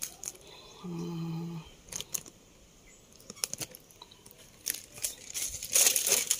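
Cellophane bouquet wrapping rustling and crinkling as it is handled close to the microphone, with scattered clicks and a louder burst of handling noise near the end. A short hummed "mm" about a second in.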